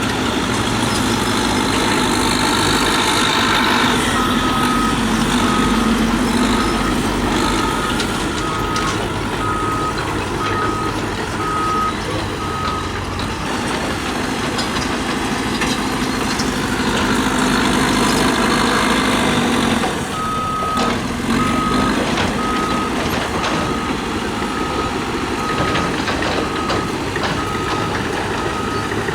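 Bulldozer's diesel engine working hard, then backing up with its reversing alarm beeping about one and a half times a second, in two spells: the alarm starts about four seconds in and stops near thirteen seconds, then starts again at about twenty seconds.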